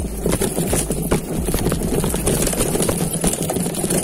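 Mountain bike clattering down a rough trail: rapid, irregular knocks and rattles of the bike over bumps, over a steady low rush.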